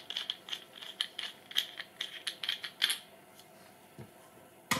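Plastic and metal parts of a chain-sharpening machine being handled and fitted together by hand: a quick run of small clicks and rattles for about three seconds, then a pause and two single clicks near the end.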